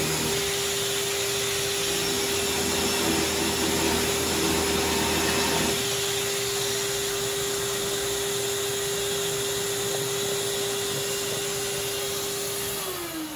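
Electric orbital sander connected by hose to a dust-extraction vacuum, running with a steady whine while sanding an old painted wooden window sash. About six seconds in the lower rumble stops, and near the end the motor winds down with a falling pitch.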